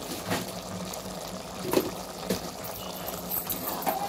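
Chicken and masala cooking in an aluminium pot on the stove, a steady bubbling hiss, with a few light knocks of a steel spoon against the pot.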